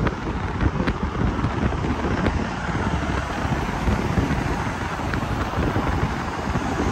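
Steady rumble and wind noise of a moving car, with wind buffeting the microphone.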